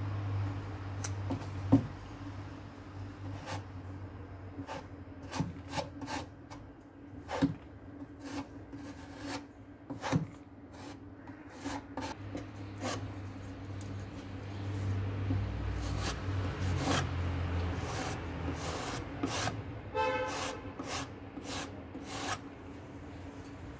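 Metal putty knife scraping and pressing wood filler into woodworm holes in old wooden furniture: many short scrapes and taps of the blade on the wood, over a low steady hum.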